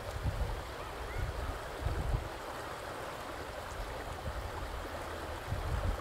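Vistula river water flowing steadily, with irregular low gusts of wind buffeting the microphone.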